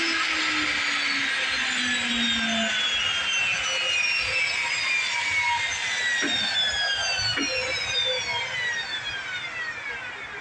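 Power saw winding down after cutting wood blocks, its whine falling steadily in pitch and fading toward the end.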